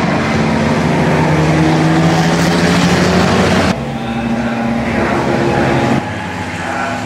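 Engines of several pre-war racing sports cars running hard as they pass through a corner in a group. The level drops suddenly about halfway through and again near the end.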